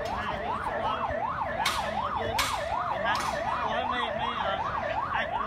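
Emergency vehicle siren sounding a fast yelp, its pitch sweeping up and down about three and a half times a second. Two short bursts of noise cut in around two seconds in.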